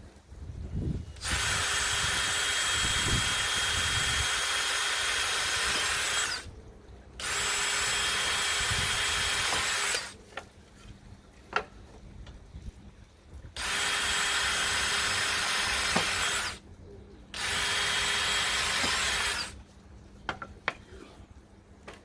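Handheld power tool working pallet wood, running in four steady bursts of a few seconds each with short pauses between. A few light knocks fall in the gaps.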